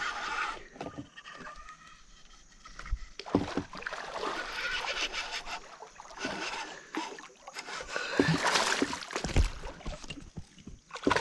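A hooked bass splashing and thrashing at the surface on the line as it is reeled in beside a kayak, with irregular sloshing and scraping and a few dull knocks, about three seconds in and again near the end.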